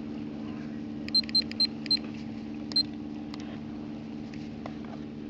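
Electric trolling motor running with a steady low hum. Five short high beeps cut in, four in quick succession about a second in and one more near three seconds.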